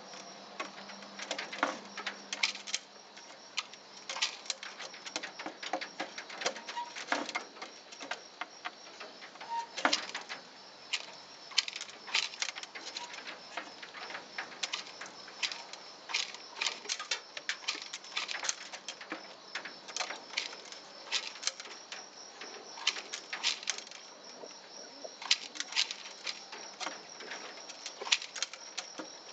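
Domestic pigeon pecking seed: its beak makes irregular sharp taps and clicks against a plastic feeder cup and a concrete ledge, sometimes several pecks in quick succession, as it digs through a mung bean and ground corn mixture and seeds rattle.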